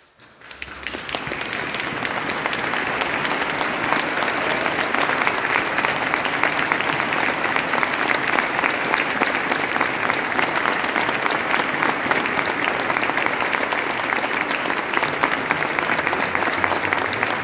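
Audience applauding with dense, steady clapping. It swells up within the first two seconds after the final note of the music and then holds at full strength.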